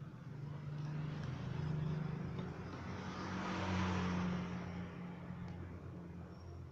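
A motor vehicle passing by, its engine and tyre noise swelling to a peak about halfway through and then fading away.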